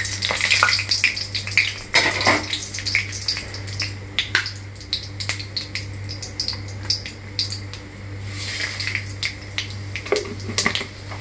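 Torn dried red chillies and panch phutana (five whole spices) sizzling in hot oil in a kadai, with many sharp crackles and pops. A spatula stirs them near the start.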